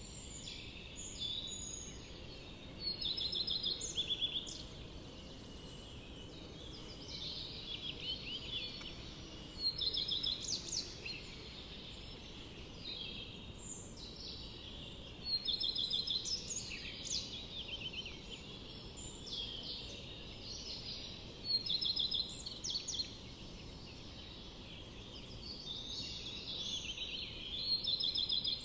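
Forest birds singing, several songs overlapping in quick chirps and rapid trills, with a louder phrase every five or six seconds, over a steady low background rush.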